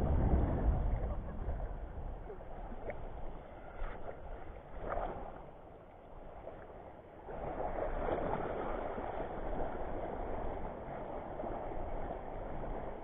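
Wind rushing over the microphone and sea water washing on a rocky shore, an even noise with no clear rhythm that drops away briefly just past the middle and then picks up again.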